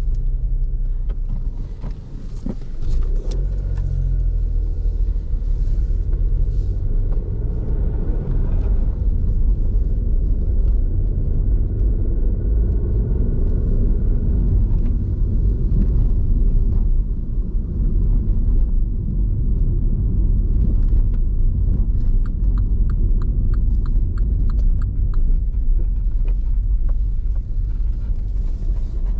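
2015 MINI One 1.2's petrol three-cylinder turbo engine and tyres giving a steady rumble as the car is driven at ordinary town speed. A run of even ticking sounds for a few seconds near the end.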